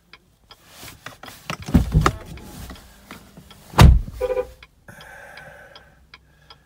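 Hazard-flasher ticking inside a 2019 Chevrolet Silverado's cabin, a steady tick about two and a half times a second. Heavy thumps and rustling come in about two seconds in and again near four seconds, the one near four seconds the loudest.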